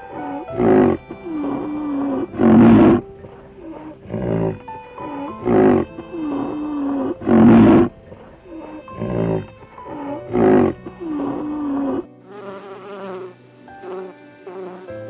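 A large animal calling in a repeated series of deep grunts, one loud call about every one and a half to two seconds, with a wavering hum between them. About twelve seconds in this gives way to a steady buzzing of honeybees.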